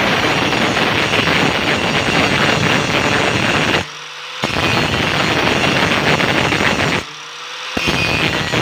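Angle grinder grinding down a weld, the disc on the metal giving a loud, harsh grinding. Twice the disc comes off the work briefly, leaving only the motor's whine rising a little before it bites again.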